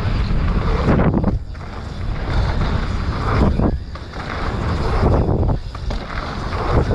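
Mountain bike rolling fast down a dirt jump line: tyre and wind noise, cut by four short lulls about two seconds apart as the bike leaves the ground over the jumps.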